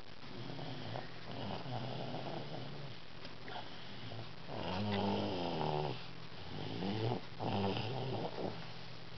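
A toddler snoring in her sleep, a low rattling snore with each breath. Two louder, longer snores come past the middle of the stretch.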